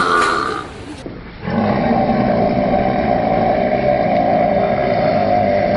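A man's loud burp trails off in the first second. After a short lull, a long, drawn-out, steady burp starts about a second and a half in and keeps going.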